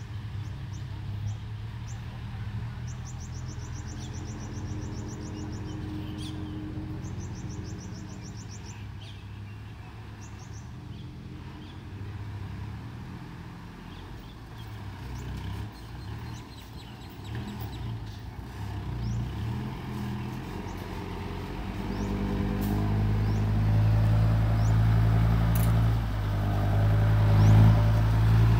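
Diesel engine of a loaded dump truck, a Hino J07C straight-six, running at low speed as the truck approaches, getting much louder over the last few seconds as it draws close. A bird trills twice a few seconds in.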